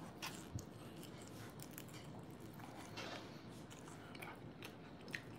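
Faint chewing of a mouthful of food, with a few soft, scattered mouth clicks.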